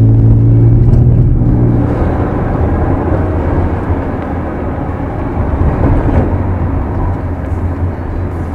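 BMW E36 drift car heard from inside the cabin while driving. A steady engine hum for about the first second and a half gives way to a rougher rumble of engine and road noise.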